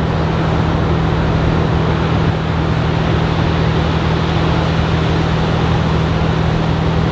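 Steady rush of ocean surf and wind at the shore: an even noise with a heavy low rumble and no distinct events.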